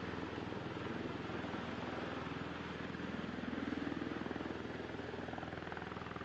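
A steady engine drone with a low, rapidly pulsing hum that swells briefly around the middle.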